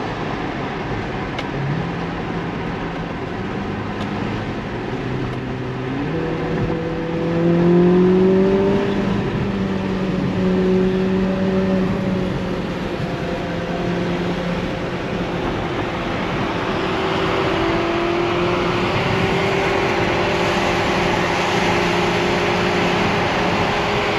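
Ferrari SF90 Stradale's twin-turbo V8 heard from inside its cabin on the road. The engine note steps up in pitch a few times in the first six seconds as the gearbox downshifts, and rises with a burst of throttle about eight seconds in. It then holds a steady tone while road and wind noise build in the second half.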